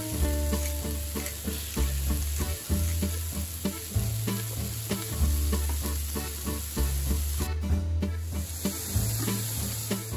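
Sausage, bacon, onion, bell pepper and mushrooms sizzling in a non-stick frying pan, the sizzle dropping out briefly about three quarters of the way through. Background music with a bass line and plucked guitar plays over it.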